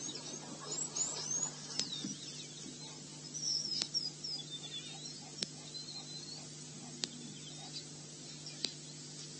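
Small birds chirping in short, high twittering calls, busiest in the first half, over a steady low hum, with a sharp click every one and a half to two seconds.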